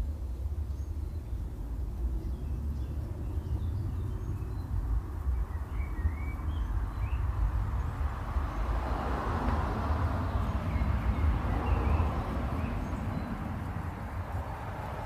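Backyard outdoor ambience: a constant low rumble, with small birds chirping now and then over the first half. About eight seconds in, a rushing noise swells up and fades again.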